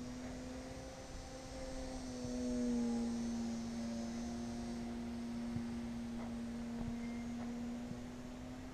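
Electric RC plane's brushless motor and propeller whining steadily overhead, one held tone that swells to its loudest about three seconds in, with light wind noise underneath.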